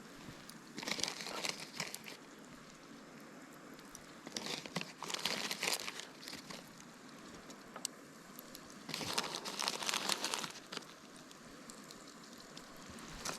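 Plastic baggie crinkling and rustling in three bursts, about a second in, around five seconds in and around nine to ten seconds in, as squirrel meat is shaken in breading mix inside it.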